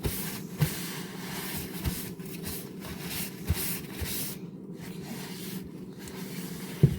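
A wet cutting board being swiped clean: a hissing, scraping rub for about four seconds with light knocks against the counter, the sharpest just before the end, over a faint steady hum.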